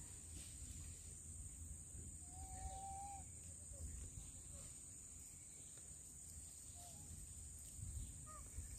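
Faint outdoor ambience: a steady low rumble and a constant thin high hiss, with one short whistled call about two and a half seconds in and a few faint chirps near the end.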